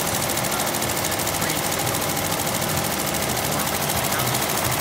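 Multi-head embroidery machine with sequin attachments running at speed, its needles giving a fast, even mechanical clatter.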